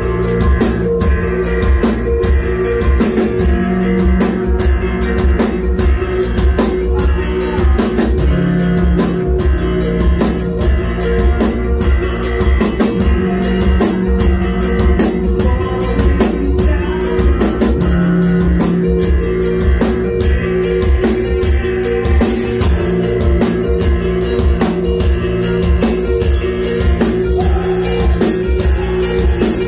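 A metal band playing live and loud: electric guitars holding sustained notes over rapid, continuous drum-kit hits.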